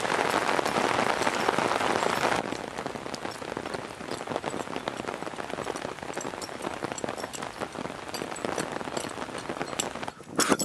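Steady rain falling on wet pavement and a wooden footbridge: an even hiss with scattered drop ticks. It drops in level a couple of seconds in, and there is a brief louder sound at the very end.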